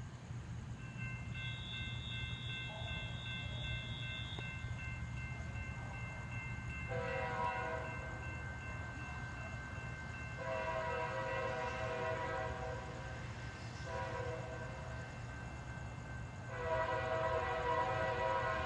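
A CSX freight locomotive's multi-chime air horn sounding in the distance: two long blasts, a short one, then a long one, the standard warning for a grade crossing. A steady low rumble runs underneath.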